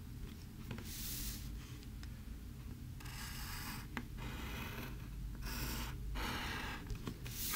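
Wooden pencil drawing lines on paper: a series of scratchy strokes, each up to about a second long with short pauses between, and a few light ticks of the pencil point.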